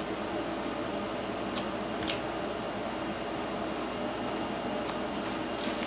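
Close-miked eating sounds: a handful of short, sharp clicks spaced out over a couple of seconds each, over a steady background hiss.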